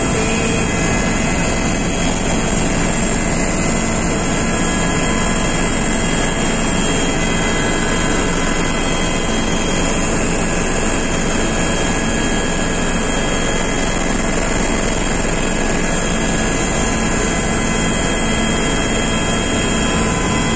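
Aircraft engine noise heard from inside the cabin: a steady, loud rushing drone with constant humming tones that does not change.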